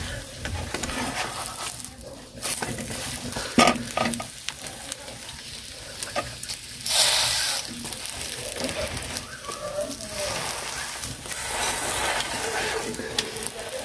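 Omelette sizzling in a non-stick frying pan while a slotted spatula scrapes, presses and turns it. A couple of sharp knocks of the spatula on the pan come a few seconds in.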